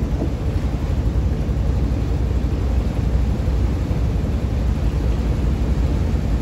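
Steady low rumble aboard a moving river tour boat: the boat's engine drone mixed with wind buffeting the microphone.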